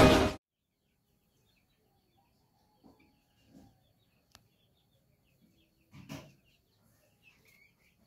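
Intro music cuts off just after the start. Then faint, scattered bird chirps, with a single sharp click a little past halfway and a short, louder knock about six seconds in.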